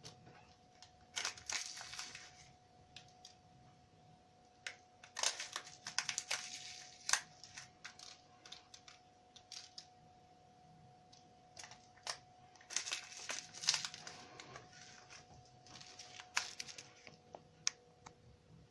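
Plastic sachet of sugar sprinkles crinkling and rustling in four short bursts, with a few sharp clicks, as sprinkles are taken out and scattered over iced Easter cakes.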